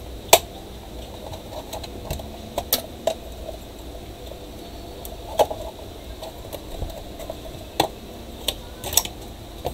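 Plastic housing of a MINISO A18 portable speaker being pried open with a thin metal pry tool: sharp clicks and snaps at irregular intervals, about eight in all, as the tool works along the seam and the clips give. A low steady background noise runs underneath.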